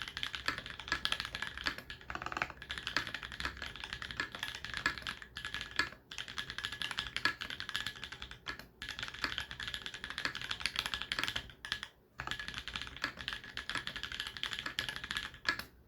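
Fast continuous typing on a TX84 mechanical keyboard with Holy Panda tactile switches: a dense stream of key clacks, broken by brief pauses about six, nine and twelve seconds in, and stopping just before the end.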